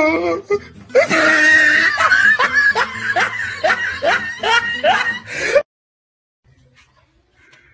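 A person laughing hard in a string of short ha-ha bursts, about three a second, that cuts off suddenly about five and a half seconds in.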